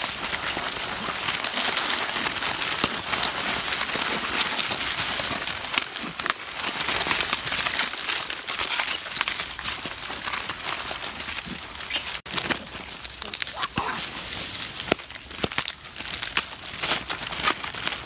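Plastic snack-cake wrappers crinkling and rustling steadily as many macaques grab, handle and tear at the packets, with a brief break about twelve seconds in.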